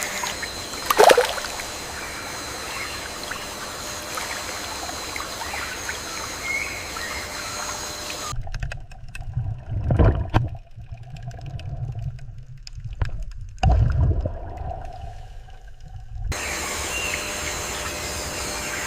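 Forest ambience of trickling water with a steady faint high hum, and one sudden loud sound about a second in. In the middle it gives way for several seconds to a low rumble with a few swells, then the trickling ambience returns.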